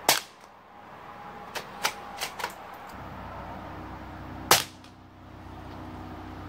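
Two shots from a Marlin XT-22 bolt-action .22 rifle firing subsonic CB Short rounds, about four and a half seconds apart; each is a short sharp report that kind of sounds like a modified air gun. Between the shots come a few lighter clicks of the bolt being worked to chamber the next round.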